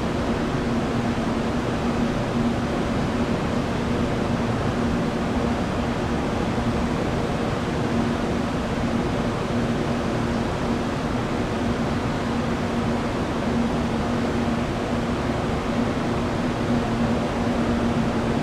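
Steady hum and rush of jet engines running at an airport, an even noise with a constant low tone.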